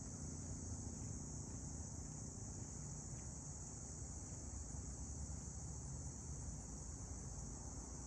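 A steady, high-pitched insect chorus, with a low rumble underneath.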